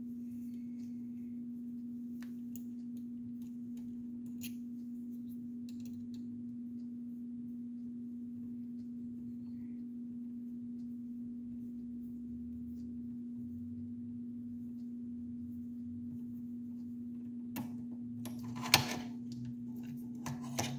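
Small metal clicks and scrapes of a hex key and screws being worked out of the hot end of an Ender 3 Pro 3D printer, over a steady low hum. A few sharper clicks come near the end, one of them loud.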